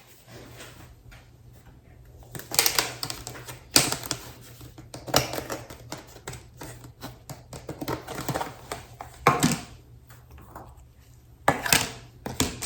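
Irregular clicks and clattering knocks of kitchen utensils and plastic meal-prep containers being handled, some in quick runs, over a steady low hum.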